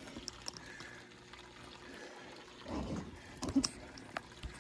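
Thin sheet of water trickling off the end of a Miller table into its catch pan, over the faint steady hum of the table's recirculating pump. A brief rumble and a few knocks come about three seconds in.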